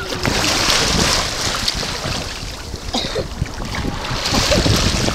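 Wind buffeting the microphone over shallow seawater lapping and washing, a rushing noise that swells twice over a low rumble.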